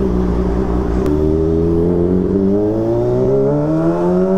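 Kawasaki ZX25R's four-cylinder engine through an Arrow Pro Race exhaust, holding a steady note and then accelerating about a second in, its pitch rising smoothly and steadily as the revs climb.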